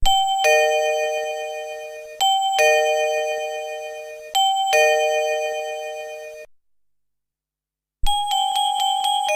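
Electronic doorbell chime from a Hinix HN0804E polyphonic doorbell IC: a ding-dong, a high note followed by a lower two-note chord, played three times, each ringing out and fading before the tune cuts off. After a pause of about a second and a half, a faster melody of short chime notes starts near the end.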